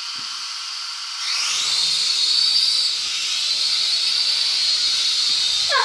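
Toy quadcopter's small electric motors and propellers whining. About a second in, the whine rises in pitch and gets louder as the drone spins up and lifts off, then holds a steady high whine while it flies.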